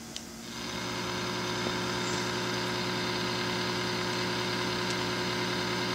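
Steady hum-laden buzz with hiss from a Cobra 29 CB radio's speaker, coming on about half a second in as it picks up a second radio keyed into a dummy load: a weak carrier reading less than one S unit without the receive preamp.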